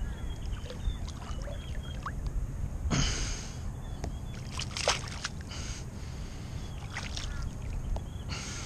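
Shallow water splashing in several short bursts as a hooked flathead is hauled in and lifted out by hand, over a steady low rumble.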